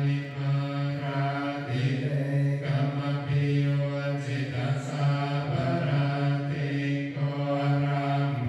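Theravada Buddhist chanting: male voices chanting together on one low, steady pitch, with short breaks between phrases.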